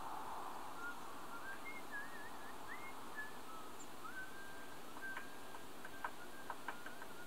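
Faint bird song: thin whistled notes that waver and glide, with a few short ticks among them in the second half, over a steady hiss.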